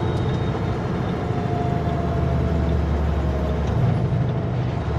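Kenworth W900L semi truck's diesel engine and road noise on a mountain descent: a steady low drone with no sudden changes.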